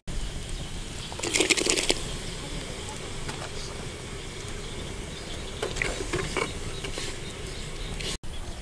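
Open wood fire burning under a clay cooking pot, with scattered small crackles over a steady hiss, and a louder short noisy burst about a second in.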